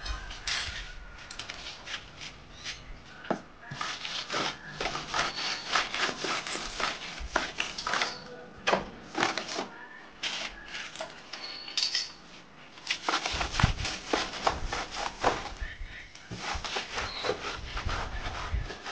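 Hand tools at work on tile, cement and wood: irregular scraping and rubbing with many short knocks and clicks. A few short, high chirps come through now and then.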